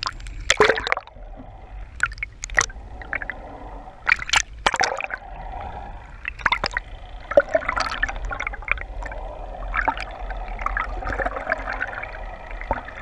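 Underwater sound through a submerged camera: water gurgling and sloshing against the housing, with irregular sharp clicks and pops over a steady low hum.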